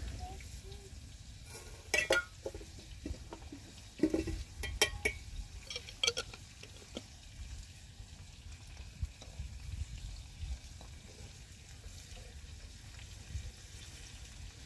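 Cookware being handled at an open cooking fire: a few sharp clinks and knocks of kettle, glass and pan, bunched around two, four to five and six seconds in, over a low steady rumble.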